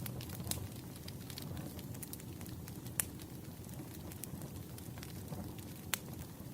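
Burning firewood crackling: a steady low rumble with scattered sharp pops, the strongest about three seconds in and again near the end.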